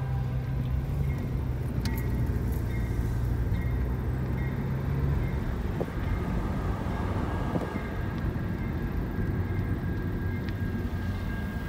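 Car engine and tyre noise heard from inside the cabin while driving, with a low steady hum that drops away about five seconds in.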